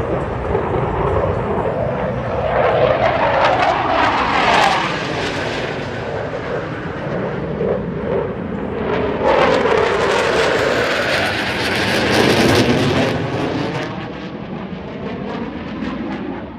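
Fighter jets flying overhead, their engines a loud rumble. It swells to a peak about four seconds in, eases, then builds to a second, longer peak from about nine to thirteen seconds in with a sweeping, shifting tone as the jets pass, and fades near the end.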